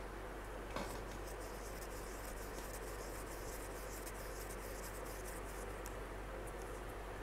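A light knock about a second in, then rapid faint scratching ticks of a stick stirring resin in a small plastic cup, over a steady low hum and hiss.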